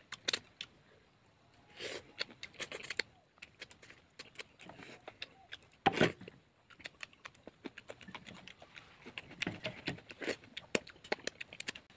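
A person eating chicken intestine curry by hand: wet chewing and lip-smacking with many small clicks, and a louder mouth sound about six seconds in as food goes into the mouth.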